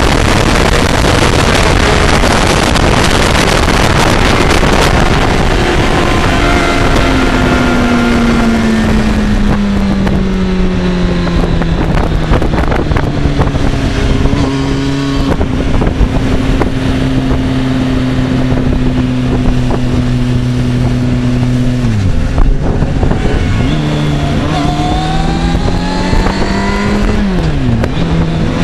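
2005 Kawasaki ZX-6RR's 600 cc inline-four engine and wind rush heard from on board the bike at speed. Wind noise dominates at first, then the engine note falls as the bike slows, holds steady through a long corner, and climbs in rising steps with gear changes near the end.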